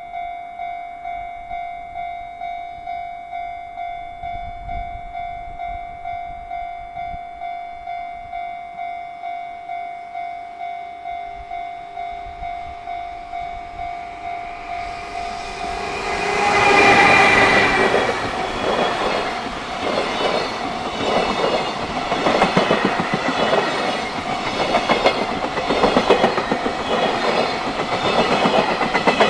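A Japanese level-crossing warning bell rings steadily, about one and a half strikes a second. About sixteen seconds in, a JR Freight train arrives and runs past: a loud rumble with its wheels clacking over the rail joints, which covers the bell.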